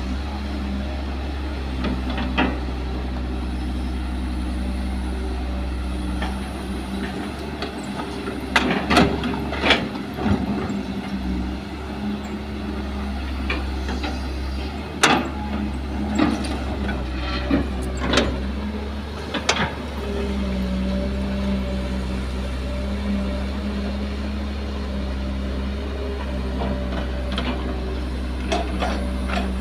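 Kobelco SK200 hydraulic excavator's diesel engine running steadily under varying load while digging. Sharp knocks and clanks of the bucket in rocky soil, clustered from about a third of the way in to two-thirds, with a few more near the end.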